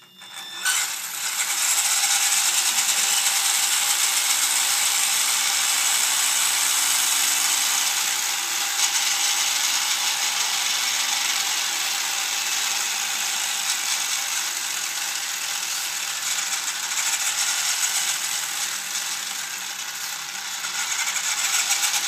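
Radio-controlled truck's drivetrain, motor and gears, running with its wheels spinning freely off the ground: a continuous gear whir and rattle that starts about half a second in, its level rising and falling a little.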